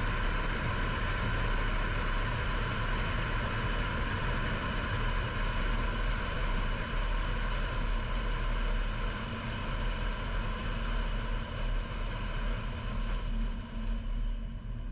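Steady road and engine noise of a car driving: a low rumble under an even hiss. The higher hiss drops away near the end.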